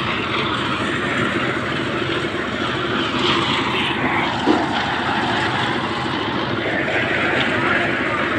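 A steady engine-like drone with a faint hum, and a single short knock about four and a half seconds in.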